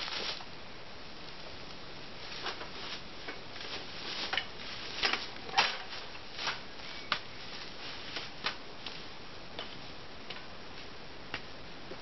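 Irregular clicks and light knocks from a metal stepladder being set up and climbed, loudest a little past five seconds in, over a steady hiss.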